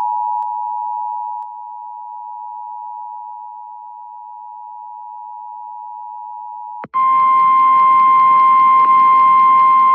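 Emergency Alert System two-tone attention signal: a steady pair of close tones that fades somewhat. About seven seconds in it cuts abruptly to a single higher steady tone with hiss beneath it, the NOAA Weather Radio warning alarm tone, announcing a Winter Storm Warning.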